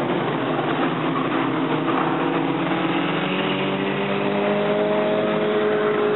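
Several dirt-track race car engines running together as the cars circle the oval, one engine's pitch climbing slowly through the second half.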